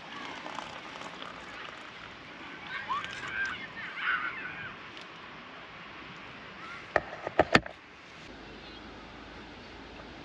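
Birds calling in short bursts over a steady background hiss, then a quick cluster of sharp clicks about seven seconds in.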